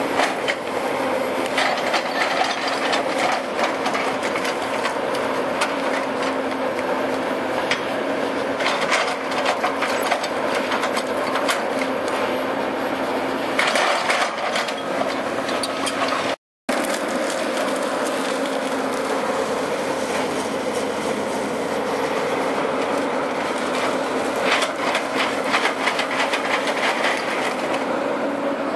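The engine of a heavy tree-removal machine runs steadily as it works almond trees out of the ground, with many cracks and knocks of wood and roots over the top. The sound breaks off for a moment a little past halfway, then the same engine and cracking go on.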